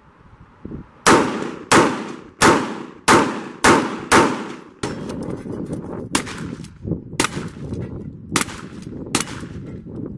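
AR-style rifle firing six rapid shots at steel targets, about 0.6 s apart, each with a short ring. Then, over a steadier outdoor background, about five more gunshots at uneven spacing.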